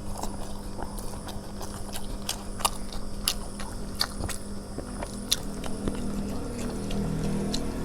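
A person chewing and eating food close to the microphone, with scattered sharp clicks, over a steady low hum.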